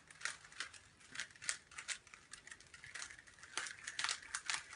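Rubik's cube being turned by hand: quick, irregular plastic clicks and clacks as the layers are twisted.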